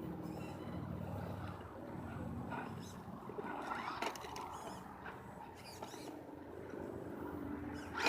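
Redcat Gen8 RC rock crawler driving slowly, its electric motor and gear drive running faintly with light clicks and scrapes from the tyres on the ground. The motor sound drops off after about two and a half seconds, and there is a short loud knock at the very end.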